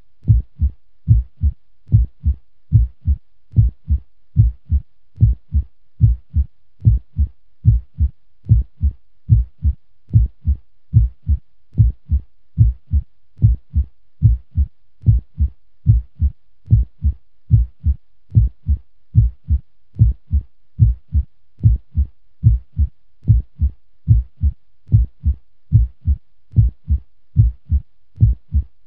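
Heartbeat at a normal resting pace: low double thumps (lub-dub) repeating evenly, a little more than once a second.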